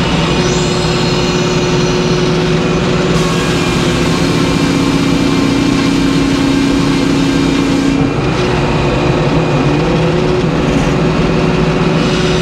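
Circular sawmill running with a steady machine hum. From about three seconds in until about eight seconds the big circular blade saws through a white pine log, adding a hissing, tearing cut sound over the hum.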